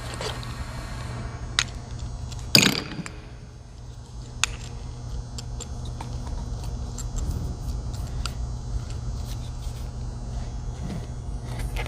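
Scattered clicks and light metal knocks as a new air hammer and its fittings are handled and assembled, over a steady low hum; the loudest knock comes a little over two seconds in.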